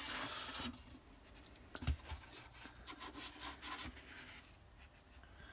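Cardboard and moulded pulp egg-carton trays being handled and lifted out of a polystyrene box: soft scraping and rustling with scattered small knocks, loudest in the first second.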